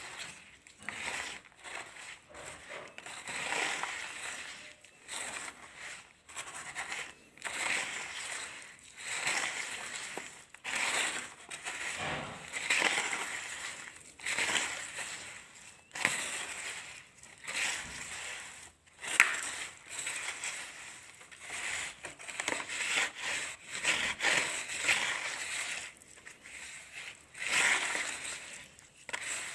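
Colored sand crumbling and being crushed in a series of crunchy bursts, roughly one every second or so.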